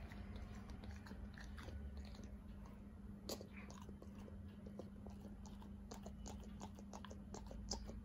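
A dog chewing and nibbling, with irregular sharp clicks and snaps of its teeth, the strongest about three seconds in and near the end. A steady low hum runs underneath.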